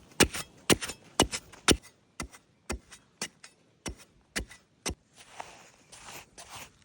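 A run of sharp knocks, often in close pairs, about two a second for around five seconds, like something hard being struck or chopped; then a rustling hiss near the end.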